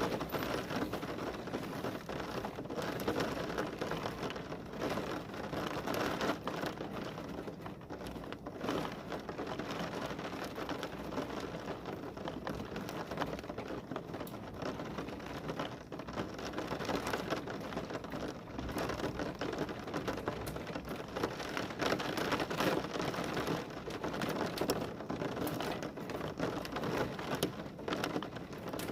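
Heavy rain falling steadily, with a dense scatter of individual drops striking a surface.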